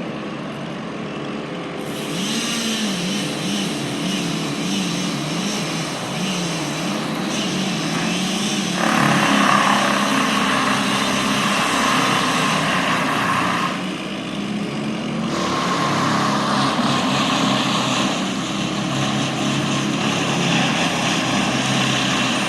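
Engines of tree-removal machinery running. One engine's pitch rises and falls repeatedly as it works under load. A harsher, louder noise joins about nine seconds in, drops out briefly around fourteen seconds, then comes back.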